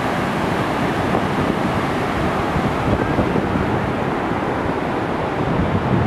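Steady rushing of falling water from a large alpine waterfall, about 180 m high, with some wind rumble on the microphone.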